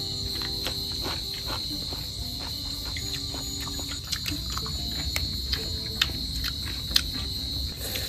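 Crickets trilling steadily, with scattered sharp crunchy clicks of fresh cucumber being bitten and chewed close to the microphone.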